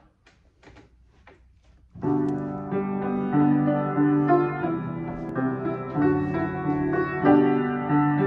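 Grand piano being played, starting suddenly about two seconds in after a few faint clicks, then carrying on with sustained chords and a moving melody line.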